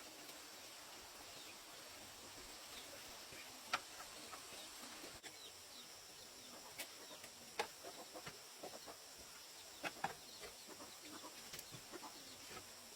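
Guinea pigs squeaking and chirping faintly: short, scattered high calls mixed with a few sharp clicks, over a faint steady hiss.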